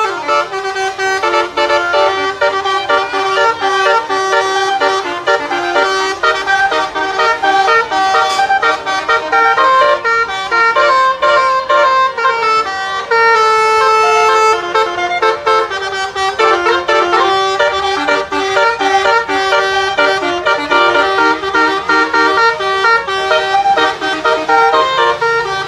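Truck telolet horn, a basuri-type multi-tone musical air horn, playing a melody. The notes change pitch in quick steps, without a break.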